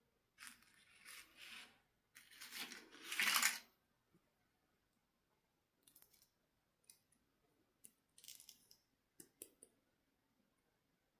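Rustling and crinkling as packaging or toys are handled, two longer bursts in the first few seconds, the second louder, followed by a few scattered light clicks and taps.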